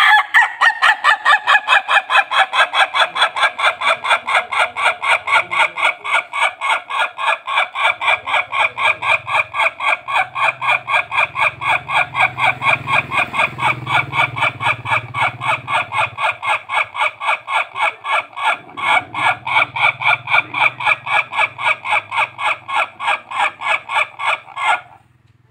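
Ayam Ketawa (laughing chicken) rooster giving one very long crow made of rapid, evenly spaced staccato notes, about three or four a second, that sounds like laughter. It runs for over twenty seconds, softens briefly about two-thirds of the way through, and stops abruptly near the end.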